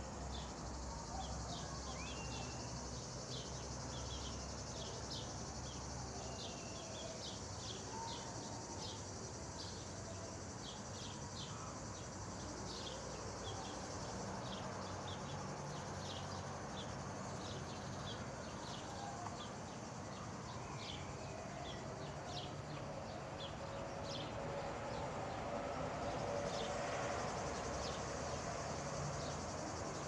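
Insects chirring steadily and high, with short high chirps repeating many times over the chirring. A wider hiss swells a little louder near the end.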